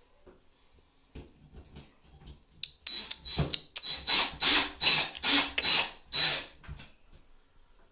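Cordless drill with a Phillips bit driving a screw through a wooden mounting board into the wall, run in about eight short trigger pulses over three or four seconds, starting about three seconds in, with a faint whine from the motor. Light handling knocks come before it.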